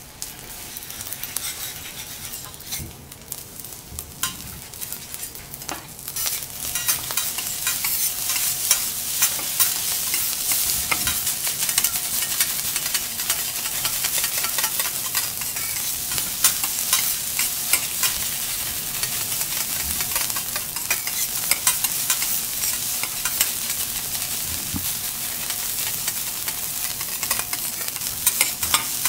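Garlic fried rice with egg sizzling on a teppanyaki steel griddle while two metal spatulas chop, scrape and toss it, with many quick clicks of the blades on the plate. It grows louder and busier about six seconds in.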